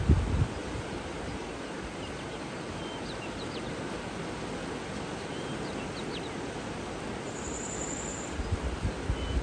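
Steady rush of running water with faint, scattered bird chirps, and a short high trill about three quarters of the way through. Low rumbling bumps come at the start and again in the last second, the loudest sounds here.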